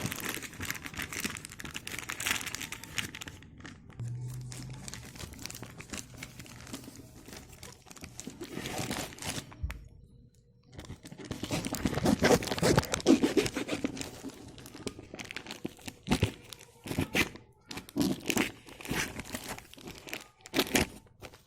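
A courier package being torn open and crinkled by hand, in irregular rustling bursts, with a brief pause about ten seconds in and the loudest tearing just after.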